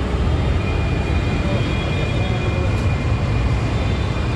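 Steady street traffic noise, a continuous low rumble.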